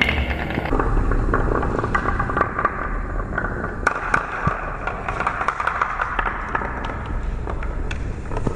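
Two marbles rolling and rattling down the zigzag grooves of a wooden marble run, with many small clicks and knocks as they hit the groove walls and each other, plus a brief run through a plastic spiral track section.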